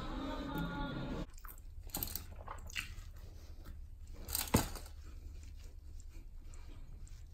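Background music that stops about a second in, then scattered crinkling and small clicking handling noises around a plastic takeout lunch box holding a foil-wrapped egg and toast, with one sharp click near the middle.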